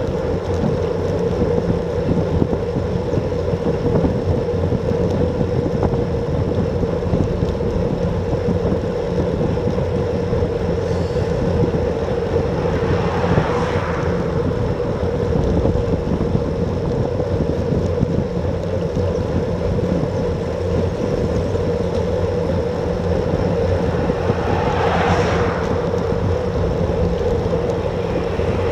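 Wind rushing over a Garmin VIRB action camera's microphone on a road bike at about 32 km/h, steady throughout with a steady hum underneath. Twice, about halfway and near the end, a passing car swells and fades.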